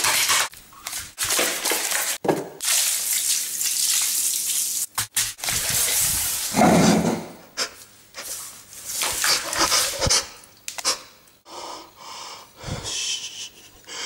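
Wet squishing and smearing of a soggy food mess being mashed and squeezed by bare hands, in irregular bursts, with a louder, lower burst about seven seconds in.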